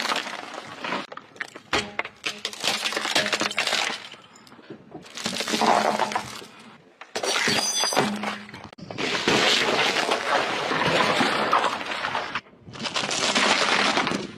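Brittle objects cracking and crunching as car tyres roll over and crush them, in about six separate bursts of crackling that start and stop abruptly.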